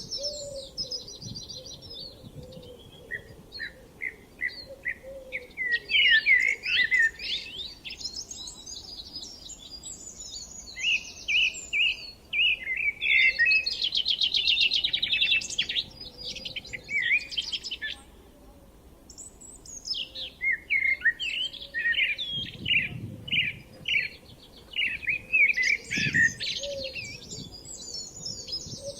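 Songbirds singing: quick, varied chirping and warbling phrases of several seconds each, overlapping, with a brief lull about two-thirds of the way through.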